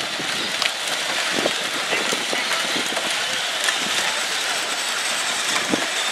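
Several battery-powered Power Wheels ride-on cars running at once: a steady whirring of their small electric motors and plastic gearboxes, with scattered knocks and clicks as the plastic bodies bump into each other.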